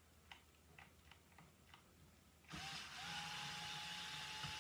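A few faint clicks, then about two and a half seconds in a cordless drill/driver starts and runs with a steady whine, backing a screw out of a guitar pickguard.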